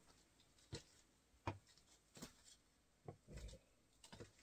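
Faint footsteps of Asics Gel-Kayano 14 sneakers on a wooden floor, a soft step about every three quarters of a second as the wearer walks in place.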